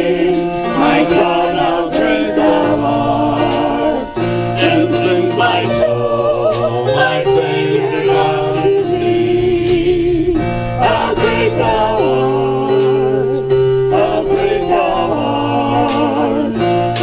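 A worship song sung with instrumental accompaniment: voices holding and changing notes over steady low notes.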